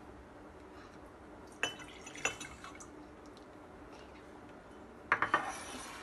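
Small steel bowls and a spoon clinking against a ceramic mug and the countertop: two sharp clinks about a second and a half and two seconds in, then a short clatter of several knocks about five seconds in.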